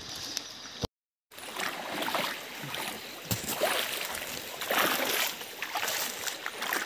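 Water splashing and sloshing in irregular strokes, from people working in shallow river water. The sound cuts out completely for about half a second near the start.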